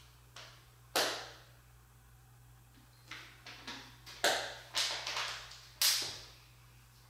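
Plastic water bottle being handled: sharp crackles and clicks, a single one about a second in and a quick cluster from about three to five seconds, then a louder knock near the end as it is set down on the counter.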